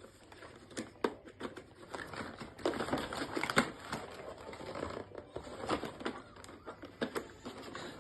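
Irregular clicks, knocks and rustling as a toy car's cardboard and plastic packaging is handled and the screws holding the car to the box are worked loose.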